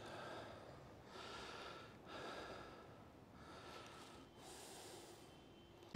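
A person breathing heavily close to the microphone, about one breath a second.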